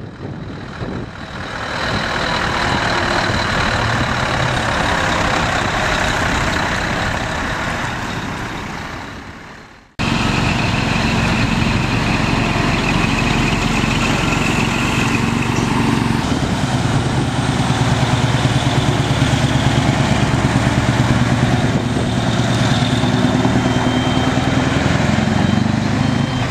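Scania tractor-unit diesel engines. One truck's engine builds up and passes by, then fades, and the sound cuts abruptly. Another runs steadily as the trucks turn and pull away, with a repeating reversing beeper near the end.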